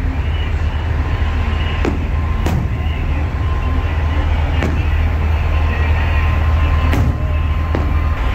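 Big-rig diesel engines idling, a steady low rumble, with a few sharp clicks scattered through it.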